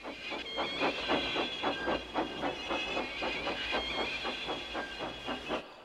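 Steam locomotive chuffing hard, rapid even puffs about five a second over a steady hiss: the engine straining to push. It stops abruptly near the end.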